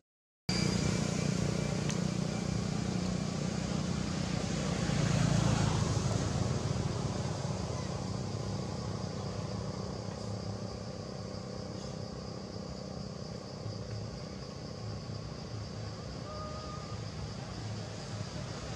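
Steady low background rumble, strongest in the bass. It drops out completely for about half a second at the very start, then eases slightly after about six seconds.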